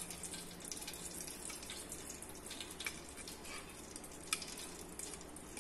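Desi ghee going into a hot, just-dried cooking pot: a faint, even sizzle with a few scattered sharp crackles.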